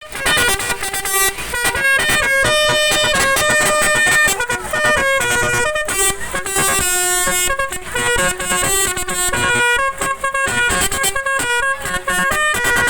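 Telolet musical horn on an odong-odong children's ride car playing a tune: loud held horn notes stepping up and down in pitch, often several tones sounding together, without a break.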